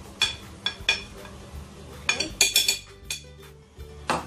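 Spoon clinking against the rim of a glass bowl in sharp, ringing taps, knocking dry cake ingredients out into a mixing bowl a little at a time. There are a few taps in the first second, a quick cluster around the middle, and one more near the end.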